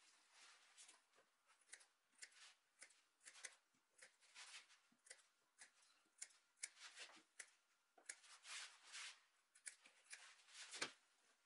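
Scissors snipping through cotton-wool upholstery padding, a long irregular run of short, faint snips as the padding is trimmed around a wooden frame.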